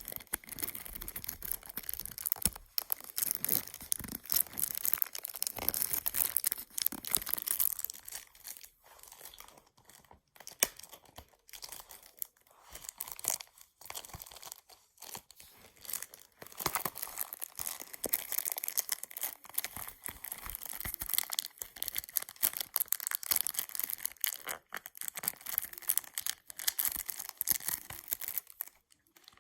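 Plastic shrink-wrap being torn and peeled off a CD case: irregular crinkling and tearing, with a few short pauses.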